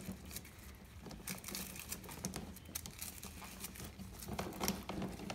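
A brush scrubbing a motorcycle drive chain as it soaks in a tub of diesel fuel and motor oil, with the chain's links clicking and shifting in the liquid: a run of irregular small scratches and clicks.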